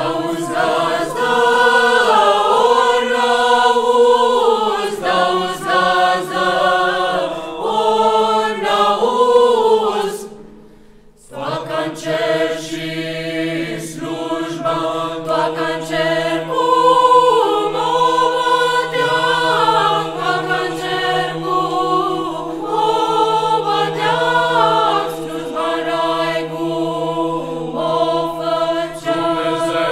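Mixed choir of women's and men's voices singing a Romanian Christmas carol (colindă) a cappella. The singing breaks off briefly about a third of the way in, then resumes with low voices holding a steady note beneath the melody.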